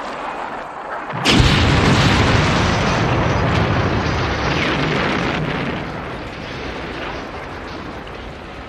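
Movie explosion: a building blows apart with a sudden loud blast about a second in, followed by several seconds of blast noise and flying debris that slowly die away.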